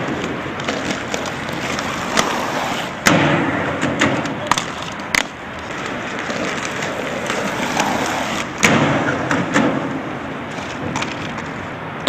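Inline skate wheels rolling over rough asphalt, a steady grinding rumble broken by several sharp clacks and thuds.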